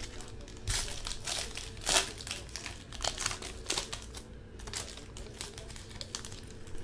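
Foil wrapper of a trading-card pack crinkling and tearing as it is opened, densest in the first two seconds, then lighter rustling and clicks as the stack of cards is handled.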